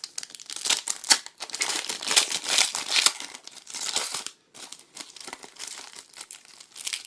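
Foil wrapper of a trading card pack crinkling and tearing as it is opened, busiest for the first four seconds or so, then lighter crinkles.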